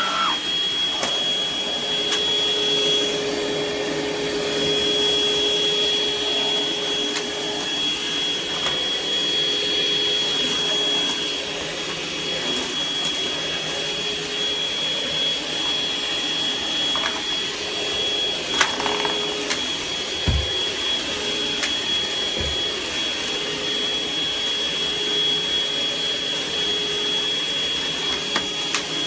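Cordless stick vacuum cleaner running steadily with a constant high-pitched whine over its motor noise. A few short knocks come about two-thirds of the way through.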